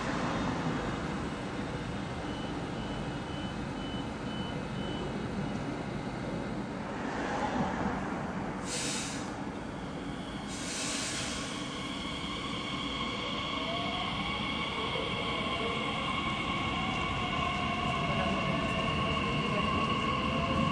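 Bombardier Talent 2 (class 1442) electric multiple unit pulling out of a station. Near the start there is a short run of high door-closing warning beeps, and midway two loud hisses of air as the brakes release. In the second half the traction motors whine, rising slowly in pitch as the train accelerates.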